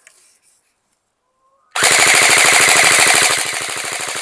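Game Face Insurgent AK-47-style electric airsoft rifle (AEG) firing a full-auto burst: a rapid, even string of shots that starts about two seconds in and keeps going.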